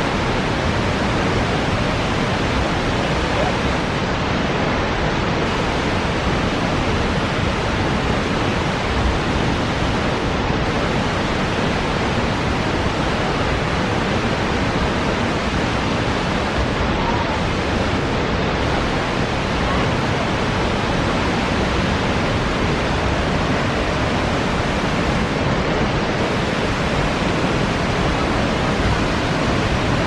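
Steady, even rushing noise of a large waterfall, the Reichenbach Falls.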